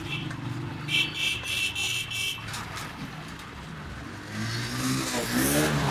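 Road traffic running, with a short run of ringing metallic clinks from metal utensils about a second in.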